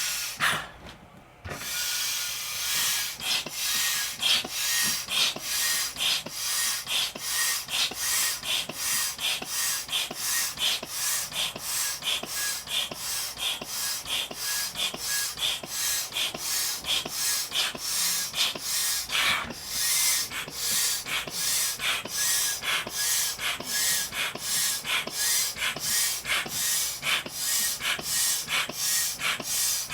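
Air being pushed into an inflatable vinyl cushion in quick, regular hissing strokes, about two a second.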